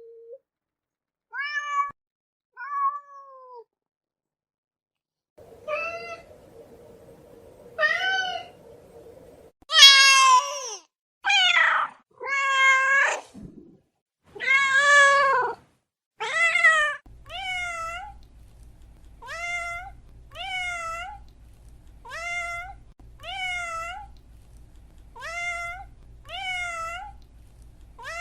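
Domestic cat meowing over and over, a long series of separate meows. The loudest and longest come about halfway through, followed by shorter meows at a steady pace of roughly one a second.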